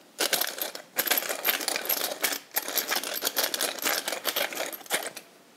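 Tall brass pepper mill cranked by hand, grinding peppercorns with a fast gritty crunching rattle. It comes in three spells, broken by short pauses about one second and two and a half seconds in.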